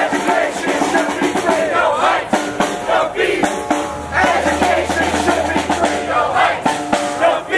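Marching protest crowd chanting and shouting, with drums beating throughout.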